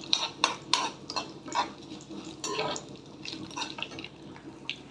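A spoon stirring and clinking against a pan as a tempering of seasoning seeds, crushed garlic and curry leaves fries in oil. The clinks come quickly in the first half and grow sparse near the end, over a faint hiss.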